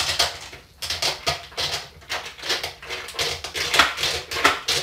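MoonRay S build platform being worked up and out through a tight hole in a plastic container lid: an irregular run of short plastic scrapes and clicks, about two or three a second. The hole is a tight fit for the platform.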